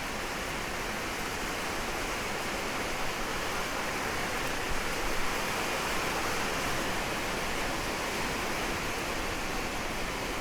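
Steady, even hiss of background noise, with a couple of faint knocks about five seconds in.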